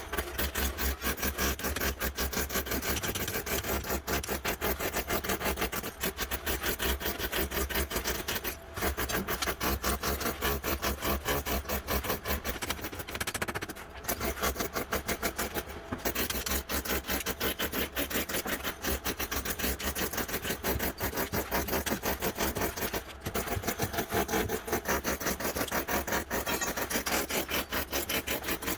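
Saw cutting through wood in a fast, rasping stroke pattern, stopping briefly a few times.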